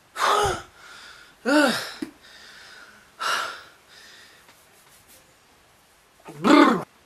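A man's loud gasps and breathy sighs, four of them with pauses between, most voiced and falling in pitch: relief at breathing freely after taking off a tight, noseless cowl.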